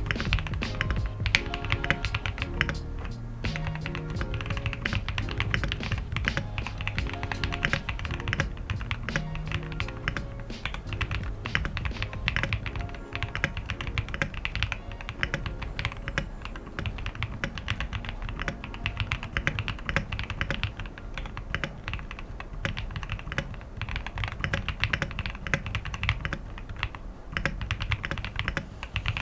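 Continuous rapid typing on an Akko ACR Top 75 mechanical keyboard fitted with Akko switches, a dense stream of key clacks. Background music plays under it.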